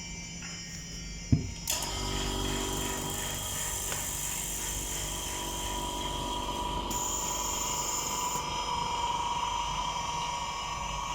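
A sharp click, then a small machine motor starts and runs steadily with a humming whine, much like an OCA screen-laminating machine's vacuum pump switching on.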